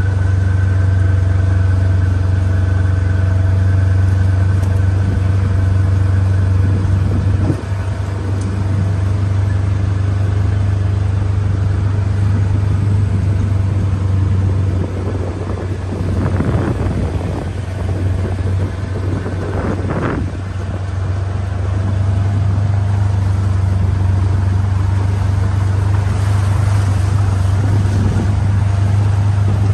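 A vehicle's engine running with a steady low hum as it drives slowly, with two brief rushes of noise about halfway through.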